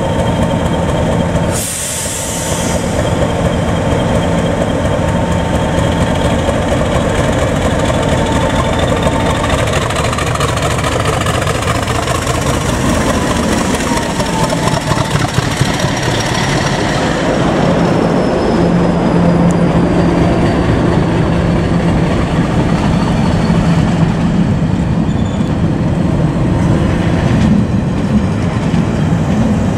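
Class 50 diesel locomotive 50008, its English Electric 16-cylinder engine under power, pulling a train away and past at close range. A whine climbs in pitch for several seconds and then slowly sinks, over a steady low hum, and the coaches follow with light wheel clatter. A short sharp crack comes about two seconds in.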